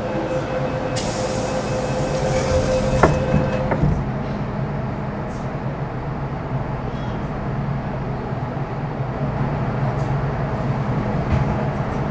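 MTR Metro Cammell M-Train electric multiple unit running through the tunnel, heard from inside the car: a steady low rumble of wheels and traction equipment. A steady whine and a high hiss sound over it and cut off together about four seconds in.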